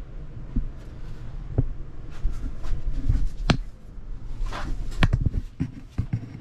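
Scattered knocks and scrapes from a person crawling through a tight rock cave passage, with a low rumble throughout and a short hiss about two-thirds of the way in.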